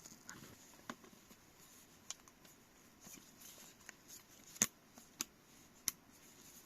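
Faint handling sounds of a camera lens and its packaging: about six small, sharp clicks and taps at irregular intervals, the loudest about two-thirds of the way in, with light rustling between them.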